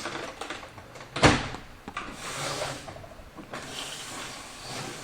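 Hard plastic printer housing being handled: a sharp knock about a second in, then stretches of scraping and rubbing.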